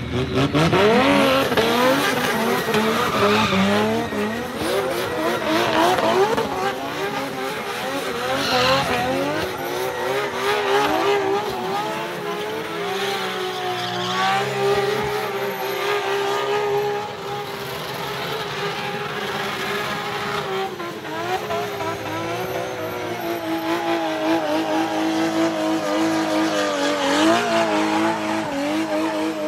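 Drift car's engine revving hard, climbing steeply in the first second, then held high and wavering as the car slides, with its tyres screeching through thick tyre smoke.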